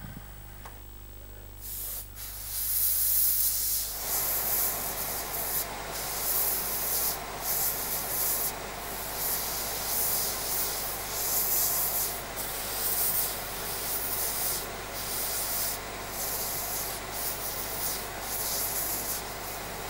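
A spotting-table steam gun hissing in repeated bursts as it flushes steam through a stained garment. It starts about two seconds in and grows fuller about four seconds in, with brief breaks between surges.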